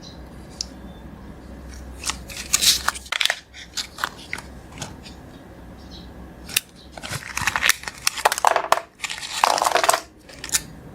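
Plastic wrapper of a Kinder Joy chocolate egg crinkling and tearing as it is handled and opened, in irregular bursts of rustling.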